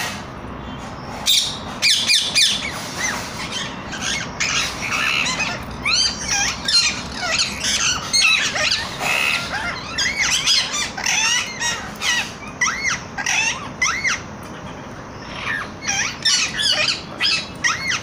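A group of rose-ringed parakeets calling: many short, high-pitched squawks in quick runs, starting about a second in, with a brief lull near the end.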